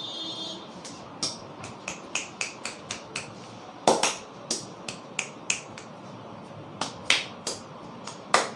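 A barber's fingers snapping during a head massage: an irregular run of about twenty sharp snaps, a few noticeably louder than the rest, over steady background noise.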